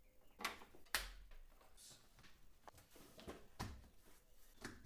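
Gloved hands handling plugs and cables at a power strip: a few faint clicks and knocks, the sharpest about a second in, with light rustling between them.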